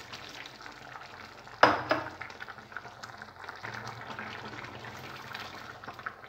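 Milk being poured from a steel mug into a pan of rice cooking in milk, splashing and bubbling, with one sharp knock about a second and a half in.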